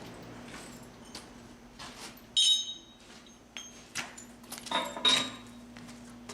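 Chisel struck with a hammer against an Indiana limestone slab, chipping off an edge to make a perpendicular edge for the rock-facing tool: a series of sharp, irregular strikes, the two loudest about two and a half seconds apart with a brief metallic ring.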